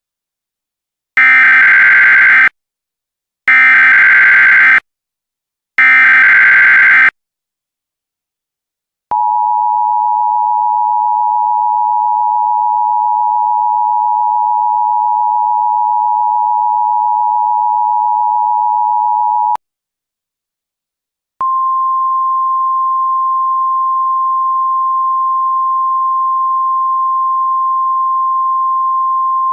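Emergency Alert System broadcast tones: three short bursts of SAME digital header data, each about a second long and a second apart. Then the two-tone attention signal sounds steadily for about ten seconds. After a two-second gap, a single steady tone slightly higher in pitch begins and carries on.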